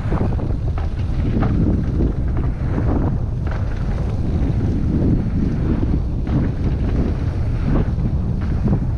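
Heavy wind buffeting on the microphone of a mountain bike ridden at speed, a dense steady rumble with a few short knocks from the trail.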